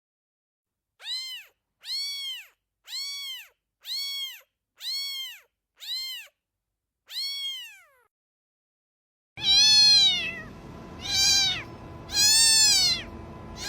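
A cat meowing: seven short meows about a second apart, each rising then falling in pitch, the last one longer and trailing down. After a short silence come three louder, longer meows over a faint steady hiss and hum.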